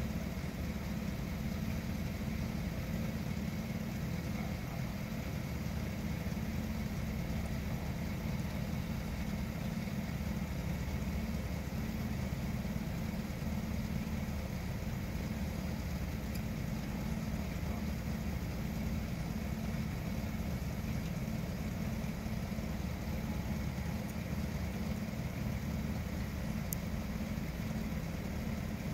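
Vehicle engine idling: a steady low rumble that does not change.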